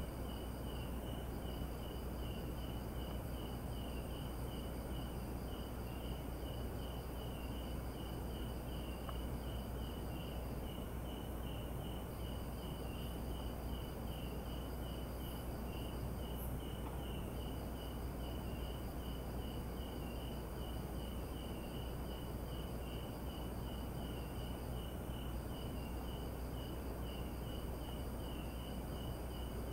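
Crickets and other night insects calling in a forest. One keeps up a steady run of quick chirps, while a second, higher trill stops and starts again every few seconds. A low steady hum lies underneath.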